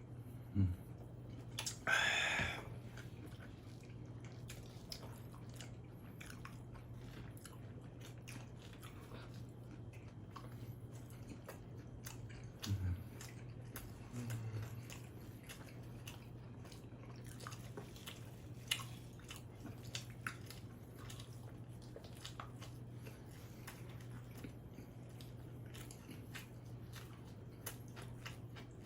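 Close-miked chewing and biting on pizza: soft wet mouth clicks and crunches of crust, with a louder crunching burst about two seconds in. A steady low hum sits under it.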